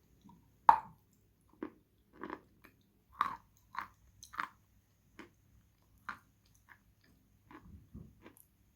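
Khrapovsky chalk being bitten and chewed, crunching. A sharp bite about a second in is the loudest, then crisp crunches follow every half second to a second.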